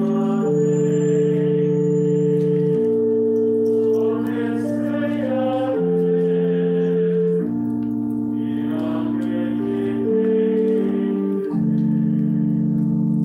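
Organ holding sustained chords that change every one to three seconds, accompanying a sung communion antiphon. Singing voices rise over the organ twice, about four and eight seconds in.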